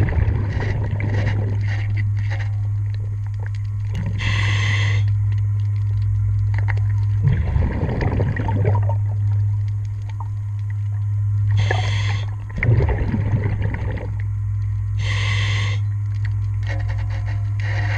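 Underwater scuba breathing through a diver's regulator: three hissing inhales, each followed a little later by a rumble of exhaled bubbles, over a steady low hum.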